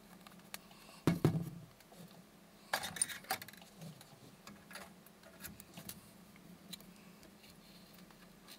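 Small handling sounds at a work table: a knock about a second in, then a quick run of sharp metallic clicks and clinks around three seconds in, and scattered light ticks after.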